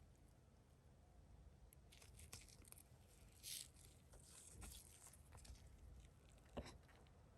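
Faint rustling, scraping and tearing of a flash drive's retail packaging being handled and opened, with one sharper click or knock near the end.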